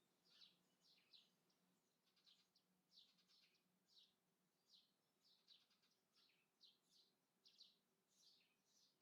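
Faint chirping of small birds: many short, quick, downward chirps, several a second, with a low steady hum underneath.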